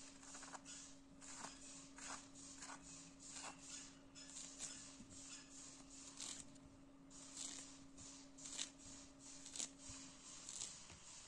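A small blade cutting and scraping the peel off an orange, in short scratchy strokes about two a second, over a steady low hum.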